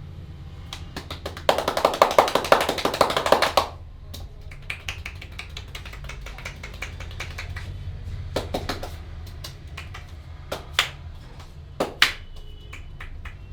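Massaging hands working a head: a rapid run of sharp taps and slaps on the head for about two seconds, then scattered single sharp clicks and snaps.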